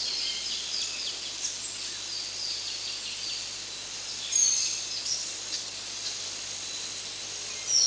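Tropical rainforest ambience: a steady high insect drone with a few short, high bird chirps, the clearest about four and a half seconds in and again near the end.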